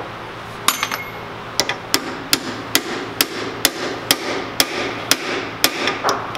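A mallet tapping on an MG overdrive planet gear assembly, about a dozen light taps roughly two a second, to line the parts up. The first strikes set the metal ringing briefly.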